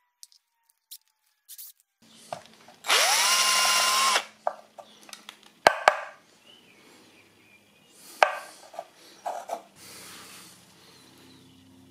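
Power drill spinning up and running for about a second, boring a hole through a plastic oil filler cap. Several sharp clicks and knocks follow as the cap is handled.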